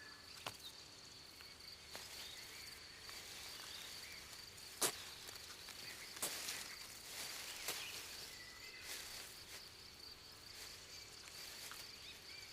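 Faint forest ambience: a steady high insect trill, like a cricket, with a few sharp clicks scattered through it, the loudest just under five seconds in, and faint short chirps.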